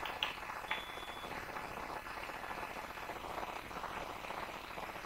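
Faint steady background hiss from an idle microphone, with two faint clicks about half a second apart near the start.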